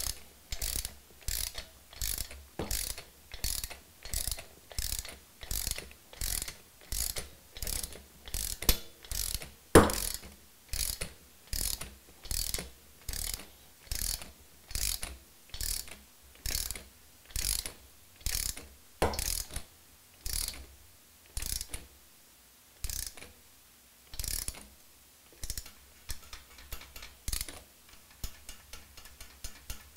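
Socket ratchet on a long extension swung back and forth to run a nut down a cylinder head stud, its pawl clicking in a short burst on each return stroke, about two strokes a second. Near the end the clicks turn lighter and quicker.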